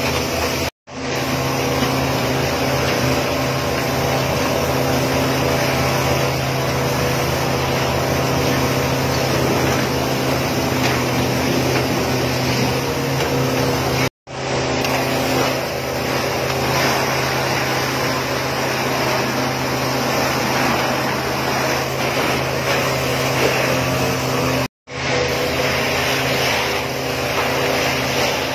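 A fire engine's pump engine running steadily with a constant low hum, under the hiss of water spraying from hoses. The sound drops out briefly three times: about a second in, around the middle and near the end.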